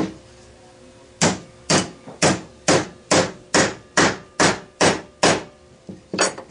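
Hammer tapping a steel punch to drive the lever pivot pin out of a 1957 GMC heater control's pot-metal housing: one strike at the start, then a run of ten steady metallic blows about two a second, then two lighter taps near the end.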